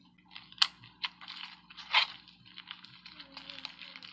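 Hands squishing and pressing slime, making crackling and sticky popping sounds, with a sharp pop about half a second in and another about two seconds in.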